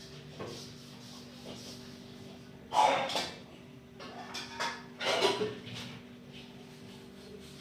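A few knocks and clatters of kitchen things being handled: one loud clatter about three seconds in, then several shorter knocks, over a steady low hum.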